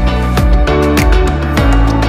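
Background music with a steady beat, a bass line and sustained melodic notes.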